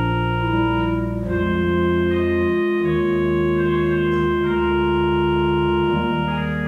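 Organ music: slow, sustained chords that change every second or so.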